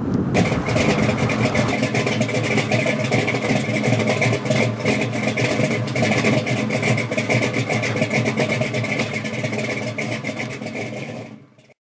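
The engine of a 1972 Chevrolet El Camino running steadily. It cuts in abruptly just after the start and stops abruptly near the end.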